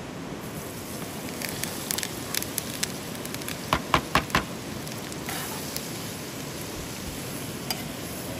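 Food frying in a pot over the fire: a steady sizzling hiss with scattered crackles, and a quick run of sharp, loud pops about four seconds in.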